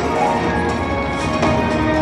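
Fu Dai Lian Lian peacock slot machine playing its electronic bonus-game music during free games, with a few short sound-effect hits about halfway through.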